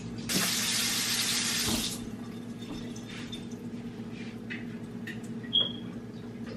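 Liquid poured into a pot for about a second and a half, followed a few seconds later by a single short, high electronic beep. A steady low hum runs underneath.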